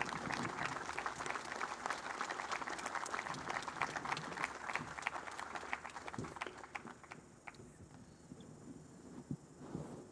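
A crowd applauding, dense clapping that thins out and dies away over the second half.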